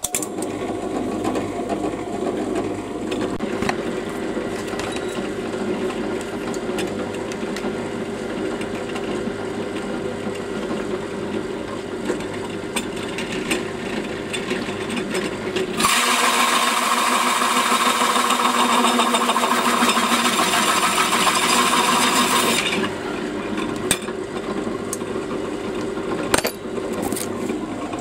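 Drill press running a large hole saw through a sheet of easy-drilling plastic: a steady machine noise, growing louder and harsher from about halfway through for several seconds as the saw cuts, then easing back.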